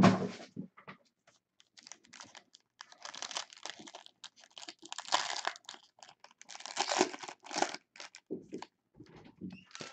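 Packaging on a box of baseball cards crinkling and tearing as it is opened, in several rustling bursts.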